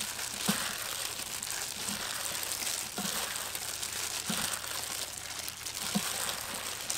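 Plastic-gloved hands tossing and squeezing noodles with shredded vegetables in a stainless steel bowl: the gloves crinkle and the wet food rustles and squelches steadily, with a few faint soft knocks.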